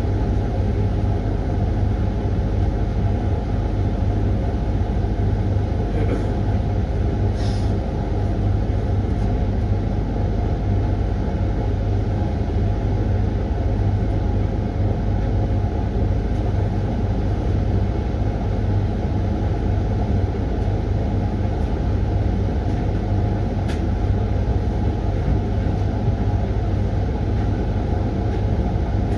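Hoover washing machine running its Refresh cycle: a steady, loud mechanical hum with a deep low drone that never pauses, with a few faint clicks.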